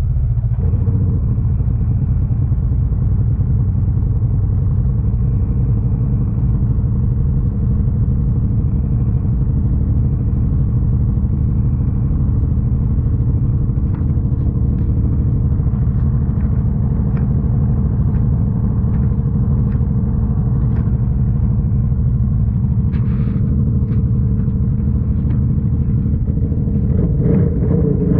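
Snowmobile engine running at a steady speed with a dense low rumble and a constant drone. Scattered clicks and knocks come in the second half.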